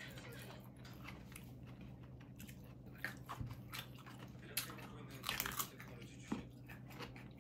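Faint gritty crunching and scattered clicks, with a few louder clusters in the second half, over a steady low hum: radishes being rubbed with coarse salt for dongchimi.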